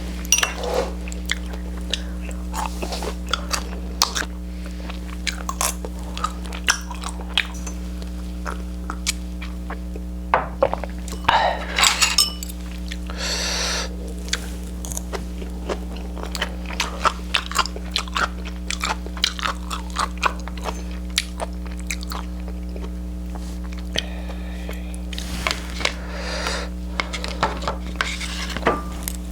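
A person chewing food close to the microphone, with many short clicks and smacks as they eat.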